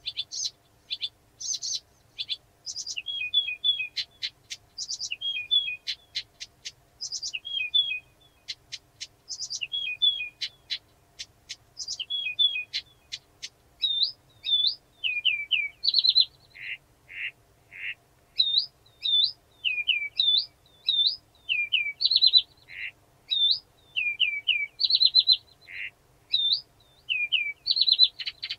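Blyth's reed warbler singing an unhurried, varied song of short phrases, each repeated two to four times before moving on. The phrases mix sharp clicks, quick slurred whistles and lower buzzy notes.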